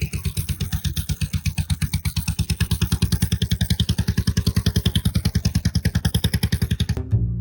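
An engine running steadily with an even, rapid beat of about ten pulses a second. Near the end it cuts off suddenly, and music with a plucked double bass starts.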